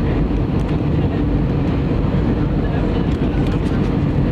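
Steady rumble of engine and airflow noise heard inside the cabin of an Airbus A320 airliner on approach to land.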